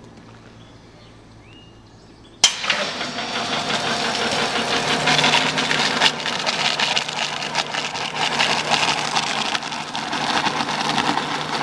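Alfran continuous mixer starting up suddenly about two and a half seconds in: foam and water hiss and splash out of the disconnected foam-line and water-line nozzles into a plastic bucket over the mixer's steady running hum. This is the test run that checks that foam and water are delivered when the mixer starts.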